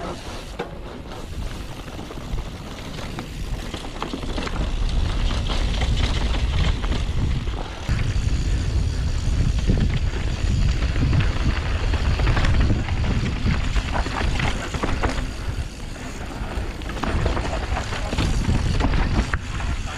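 Wind buffeting the camera microphone and mountain-bike tyres rolling fast over a dirt forest trail, with short knocks and rattles from the bike over bumps. Louder from about four seconds in.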